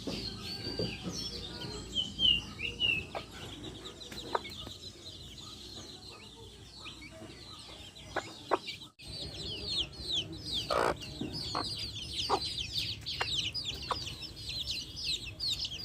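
Backyard chicks peeping almost without a break: many high, quickly falling peeps, several a second, thickest in the second half, with a few lower hen clucks among them.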